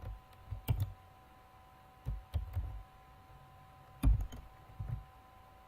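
Sparse computer keyboard keystrokes, a few short clusters of key clicks with pauses between, over a faint steady electrical hum.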